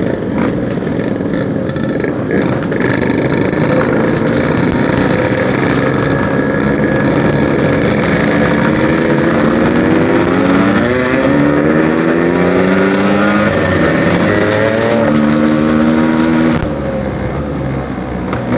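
Yamaha RX-King 135cc two-stroke single running through a Packing Power aftermarket exhaust while riding. From about halfway through, the engine note rises in pitch several times in a row as it revs, holds higher for a moment, then drops off near the end as the throttle closes.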